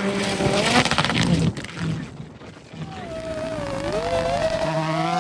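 Rally car engine revving, its note climbing under a loud burst of crackling and cracking in the first second and a half. The engine note falls away briefly, then rises and wavers again from about three seconds in.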